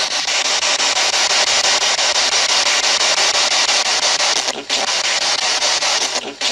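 Spirit box sweeping through radio frequencies, giving a steady, loud hiss of static that briefly cuts out twice near the end.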